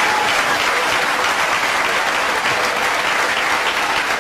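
Congregation applauding steadily, with a few voices calling out among the clapping.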